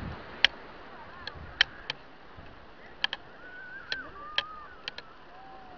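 Small stones clicking and knocking together as they are handled on bare rock: about ten sharp, irregular clicks with a short ring. Faint wavering whistles sound in the background in the second half.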